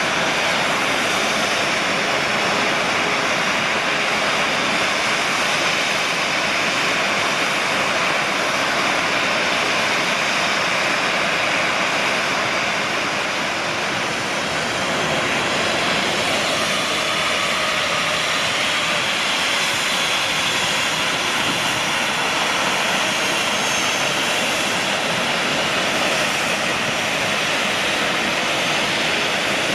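Steady jet noise of a Boeing 737-800's turbofan engines at idle on the apron: an even rushing hiss with a faint high whine. It dips briefly about halfway through, then carries on unchanged.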